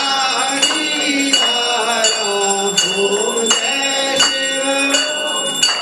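Hanging brass temple bell rung by hand in a steady beat, about one strike every three-quarters of a second, each strike ringing on, over a group singing the aarti.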